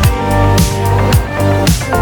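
Background music with a steady beat: kick drum and hi-hat over bass and guitar chords.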